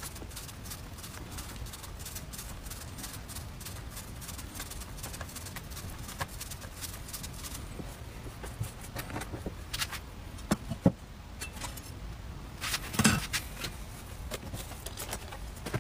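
Handling sounds of a cleaver and cut vegetable strands on a wooden board: light scattered clicks and rustles, with a few louder knocks between about ten and thirteen seconds in.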